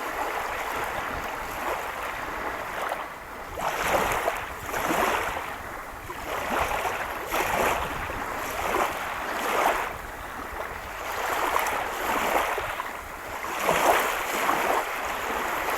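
Small waves washing onto a reservoir beach, a surge every second or so, with wind rumbling on the microphone.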